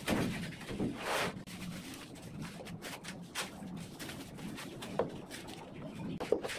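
Plastic sheet rustling and crinkling as it is spread by hand, strongest in the first second or so, followed by two light clinks of steel reinforcing bars being shifted, near the end.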